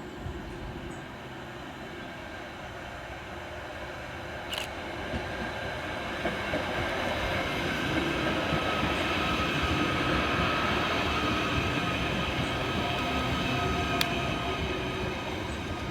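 Merseyrail Class 777 electric train moving through the platform, its running noise building from about four seconds in to a peak past the middle and easing a little toward the end, with a steady whine over it. Two sharp clicks, one near the middle and one near the end.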